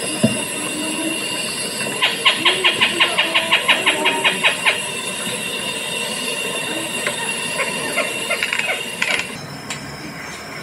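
Recorded call of a Philippine trogon played through an exhibit speaker: a rapid run of sharp repeated notes, about five a second, for a few seconds, then a few scattered notes. The recording cuts off shortly before the end.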